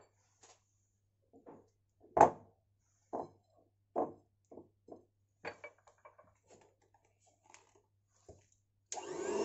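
A scatter of short knocks and clatters from a spatula and utensils against a glass mixing bowl, the loudest about two seconds in. Near the end an electric hand mixer switches on and runs steadily, beating a butter, sugar and egg batter.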